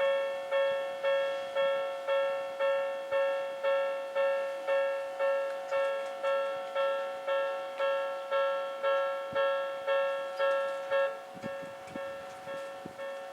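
Electronic level-crossing warning bell of the Odakyu type, chiming a bright tone about twice a second; about eleven seconds in it drops to a noticeably quieter level and keeps ringing.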